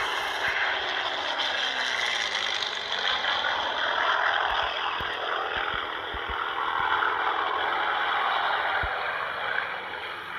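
Steady drone of a WWII fighter plane's piston engine from a film soundtrack, heard through a screen's speaker and re-recorded.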